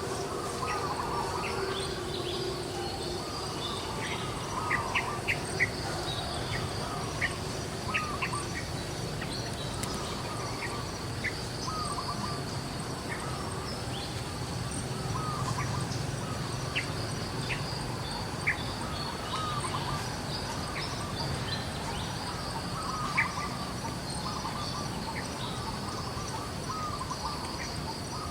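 Outdoor nature ambience: a steady high-pitched insect drone under many short, repeated bird calls and scattered sharp chirps.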